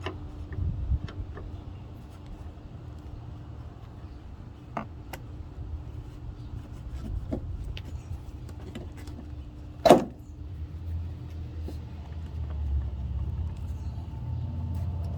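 Scattered metal clicks and knocks as a replacement engine thrust mount is worked into place, with one loud knock about ten seconds in, over a low steady background rumble.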